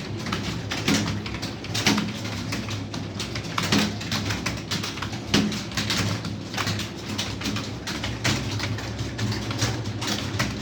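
Pigeons cooing in low, repeated calls, over a steady run of irregular sharp clicks, a few a second.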